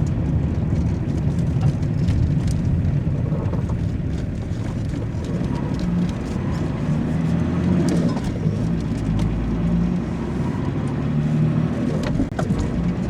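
Car driving: steady engine and road rumble, with a brief drop in level near the end.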